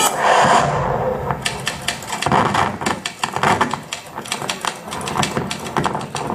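Audience noise: a murmur of voices with many irregular sharp clicks.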